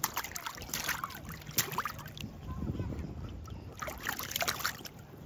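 Distant children's voices and brief calls across a lake, with scattered water splashes and lapping among the inflatables and a low rumble underneath.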